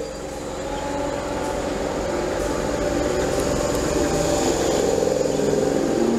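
Class 313 electric multiple unit pulling away from the platform, its traction motors giving a steady whine of several tones over wheel rumble that grows louder in the first second as the train gathers speed.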